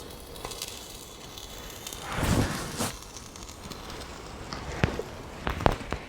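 Paper towels, set alight by a potassium crystal and glycerine reaction, burning with small crackles. There is a louder rush about two seconds in and a few sharp pops near the end.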